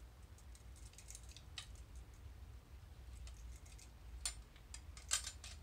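Faint clicks and taps from a brass miner's safety lamp being handled, with a few sharper clicks in the second half.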